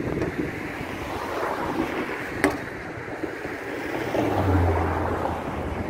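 Street ambience with passing traffic and wind on the microphone. A single sharp click comes about halfway through, and a vehicle's low, steady engine hum starts near the end.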